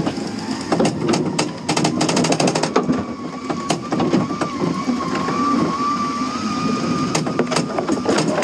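Paintball tank running, heard from inside its wooden turret: a steady engine and body rumble, with a fast run of sharp cracks about two seconds in and a steady whine through the second half.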